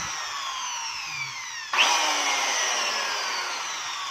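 Corded electric drill's brushed motor, just fitted with new carbon brushes, running on trigger pulls: its whine falls in pitch as it winds down. About two seconds in, the trigger is squeezed again and the motor jumps back up to speed, then winds down again. It runs freely, showing that worn carbon brushes were its only fault.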